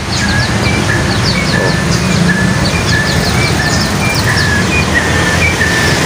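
Young male white-rumped shama in spotted juvenile plumage twittering ('ngeriwik'): a run of short, quick chirps, several a second, the soft early song that marks the bird as a male. A steady low rumble lies underneath.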